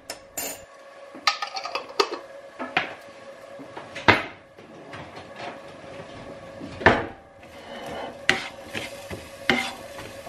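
Metal kitchen utensils clinking and knocking at irregular moments: a spoon against a glass jar of chopped garlic, then a spatula knocking and scraping in the frying pan. The loudest knocks come about four seconds in and just before seven seconds.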